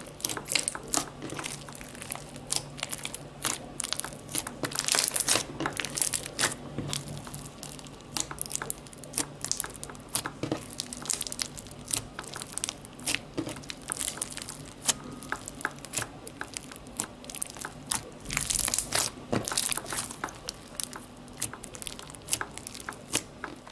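Slime with rubber bands mixed into it being squeezed and stretched by hand, making irregular crunchy crackling and popping.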